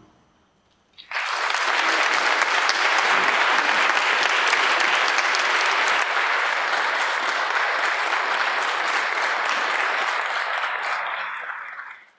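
Audience applauding after the music ends: the clapping starts about a second in, holds steady, then dies away near the end.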